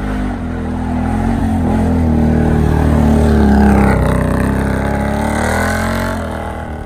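ATV engine running under throttle. It swells louder to a peak a little past the middle and then fades.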